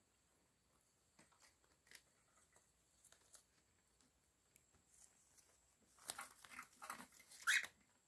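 Cockatiel clambering up a fabric curtain: faint scattered taps and scratches of claws and beak on the cloth and chain. About six seconds in comes a louder burst of scrabbling and rustling as it scrambles onto the curtain rod with its wings, with a short rising squeak near the end.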